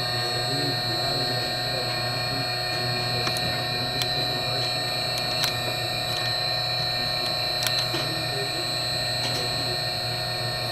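Steady machine hum made of several fixed tones, with a few sharp clicks and faint voices talking in the background.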